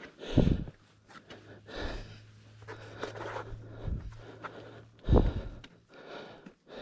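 Two gusts of wind buffeting the microphone, about half a second in and about five seconds in, with faint scuffs and clicks of footsteps on rock in between.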